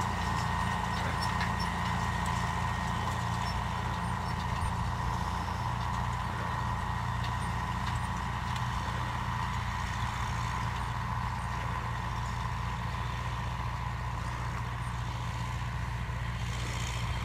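Engine running steadily at constant speed: an even low drone with a faint whine above it.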